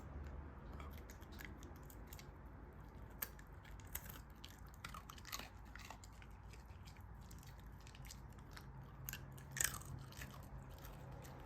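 A Shiba Inu dog chewing on a treat: faint, irregular crunching and clicking bites, with a couple of louder crunches.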